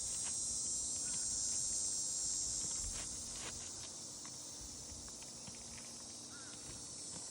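A steady, high-pitched chorus of insects, with a few faint taps and scrapes.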